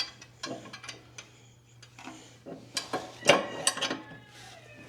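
Steel trailer receiver and its pin clinking and knocking against the motorcycle hitch mount as they are fitted together: a series of separate sharp metal knocks, the loudest ones a little past two and a half to four seconds in.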